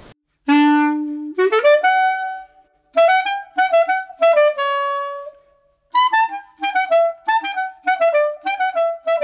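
Background music: a solo woodwind melody that opens on a low held note and slides upward, then runs on in short, quick phrases with brief pauses between them.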